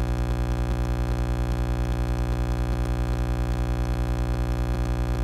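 Loud, steady electrical buzz: a low hum with many evenly spaced overtones and a fast, even flutter. It switches on and off abruptly.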